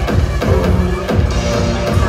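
Loud electronic dance music with a steady beat.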